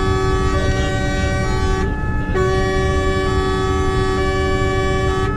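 Fire engine's siren sounding in held tones that step to a new pitch about once a second, with a brief break about two seconds in, heard from inside the cab over the engine and road rumble.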